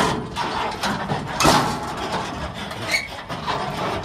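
Steel car hauler trailer deck and ramps rattling and clanking irregularly, with a louder clank about one and a half seconds in.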